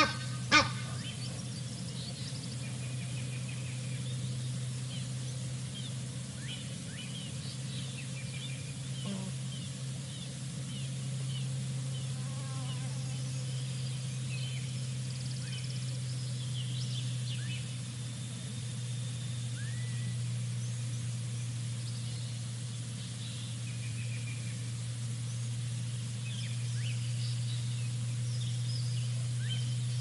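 Outdoor ambience of many small birds chirping and calling over a steady low hum, with one sharp click about half a second in.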